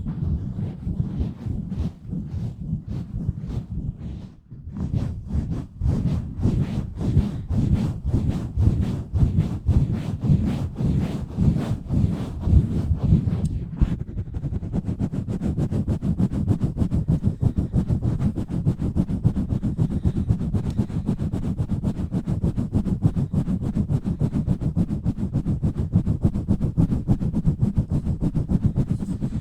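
Hands pumping and scratching fast and hard over an uncovered microphone, giving a muffled rhythmic rubbing with deep thuds. About halfway through the strokes turn faster and more even.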